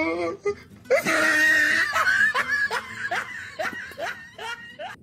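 A man laughing excitedly: a loud laughing cry about a second in, then a run of short falling 'ha' sounds, about three a second, growing fainter toward the end.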